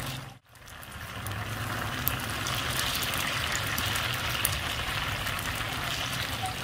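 Cubes of taro flour cake deep-frying in hot oil in a wide pan: steady sizzling with small scattered crackles, broken by a brief dropout just under half a second in.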